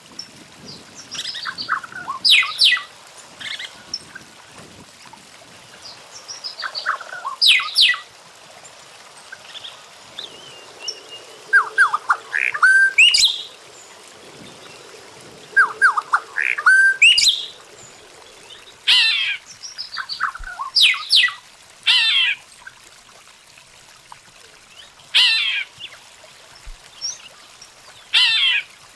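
Weaver birds calling at a nesting colony: short, harsh, chattering phrases come again and again, roughly every three seconds, some with quick falling notes.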